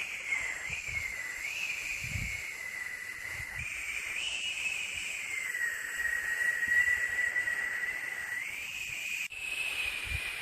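Steady white-noise hiss with a high whistling tone that wavers up and down in pitch. The sound jumps abruptly about nine seconds in, as at a loop or edit point.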